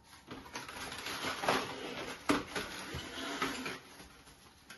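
Plastic cling film being pulled off its roll and handled, giving an irregular crinkling rustle with a couple of sharp clicks in the middle.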